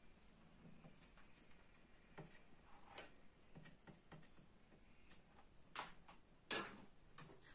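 Near silence with faint scattered ticks and small taps from a soldering iron and wire being worked against the pads of a circuit board, and one louder click about six and a half seconds in.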